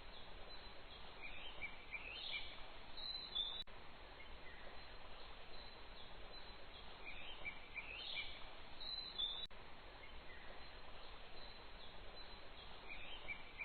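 Birds chirping over a steady hiss of outdoor ambience. The same few seconds of chirps repeat about every six seconds, with a faint click at each repeat.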